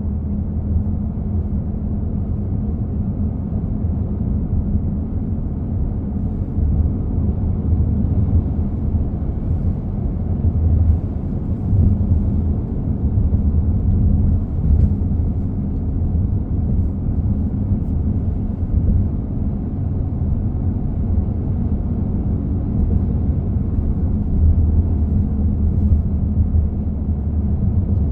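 A 2015 Honda CR-V Touring with a loud, steady low humming noise from the back of the car, over a rumble.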